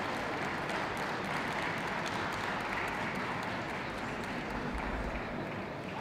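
Audience applauding, the clapping thinning out toward the end.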